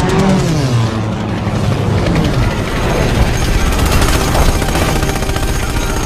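War-film battle soundtrack: an aircraft engine sweeping past with its pitch falling over the first two seconds or so, then rapid machine-gun fire amid the din of battle.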